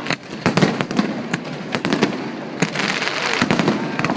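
Aerial fireworks going off: a quick irregular run of sharp bangs, about a dozen in four seconds, over a continuous crackling hiss.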